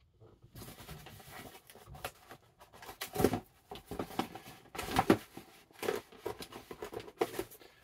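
Cardboard shipping box being torn and pulled open by hand: scraping and crackling of the flaps in irregular bursts, loudest about three seconds in and again about five seconds in.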